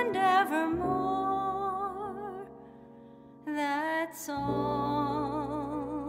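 A woman singing with a wide vibrato over a soft instrumental accompaniment. Her held note fades away about two and a half seconds in, and after a short pause she sings on.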